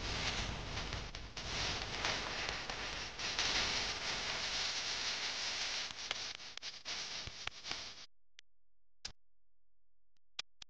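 Steady hiss-like background noise with faint ticks. About eight seconds in it cuts off abruptly to dead silence, broken by a few sharp clicks.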